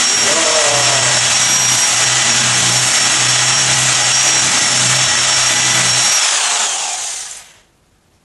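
Corded electric drill running steadily with a high motor whine, its bit boring into a pumpkin's rind and flesh. About six seconds in the trigger is released and the whine falls away as the drill spins down.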